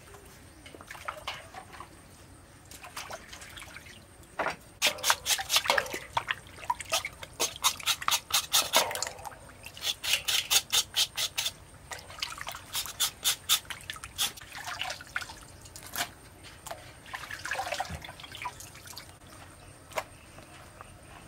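Water splashing and dripping as raw pork is moved about and washed in a steel bowl of water: a run of quick splashes and drips, busiest through the middle, with quieter handling at the start and end.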